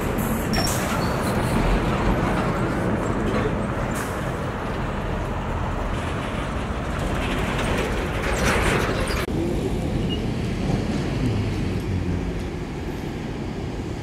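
Diesel engines of XGMA pneumatic-tyred road rollers running as they roll over fresh asphalt, a steady low rumble. A brighter hissing noise rises around eight seconds in and cuts off abruptly about a second later, leaving a quieter, duller rumble.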